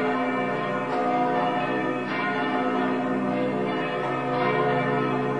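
Neamț Monastery's 19th-century church bells ringing together: several bells of different pitch overlapping, with fresh strikes every second or two over the long hum of the earlier ones.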